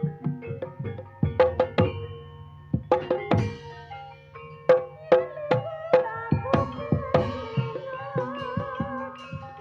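Javanese gamelan music for a barongan dance: hand-drum strokes and struck metal keys in a quick, uneven rhythm, with a wavering melody line coming in after about six seconds.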